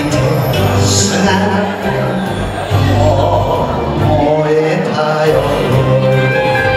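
Recorded enka music playing over the hall's loudspeakers.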